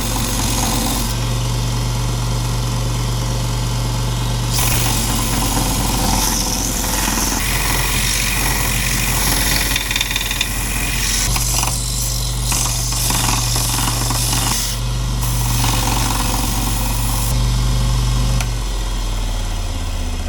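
Electric grinder running and grinding off material from the end of a freshly rehung axe handle, its tone shifting several times as it is pressed into and eased off the work.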